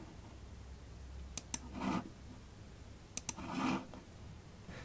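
Computer mouse button clicking twice in quick press-and-release pairs, about one and a half seconds in and again near three seconds in, as guide lines are erased in SketchUp. Each pair is followed by a soft swell of noise.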